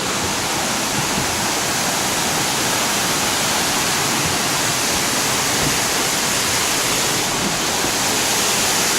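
Steady rush of water falling over a small creek cascade.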